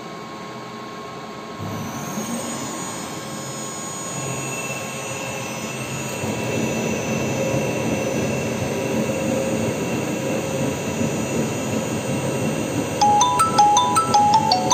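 CNC lathe running its program in auto mode: the spindle starts about two seconds in and the machine runs with a steady whine that grows as the turret brings the tool in to the workpiece. Near the end, background music with plinking, marimba-like notes comes in over it and is the loudest sound.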